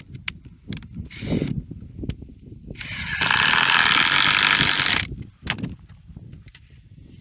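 Mechanical ratcheting from a hand-worked mechanism: a short burst about a second in, then a longer run of about two seconds.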